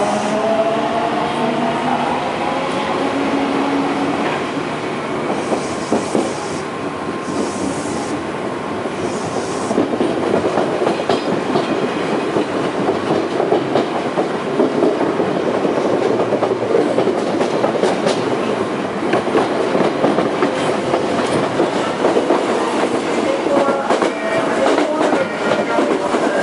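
Odakyu 1000-series electric train heard from inside the carriage as it pulls away: the traction motor whine rises in pitch over the first few seconds. It gives way to steady rolling noise and rail-joint clickety-clack, and the whine returns near the end.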